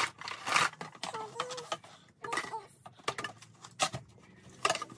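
Hollow plastic parts of a toy kitchen set knocking, clicking and scraping against each other as the tubes are handled and fitted into the plastic tabletop, in a string of short clatters.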